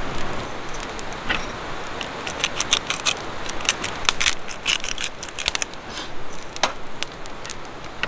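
Steel skewers clicking and clinking as they are worked through blocks of beef and handled over a metal plate: a run of sharp, irregular clicks, thickest in the middle.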